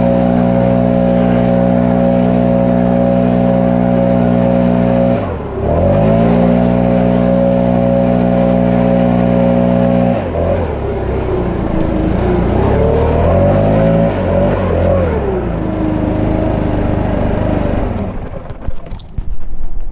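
Gas leaf blower running at full throttle, blowing air along pavement. Its engine drops sharply and picks back up about five seconds in, wavers up and down in pitch for a few seconds midway, then runs steady before winding down near the end.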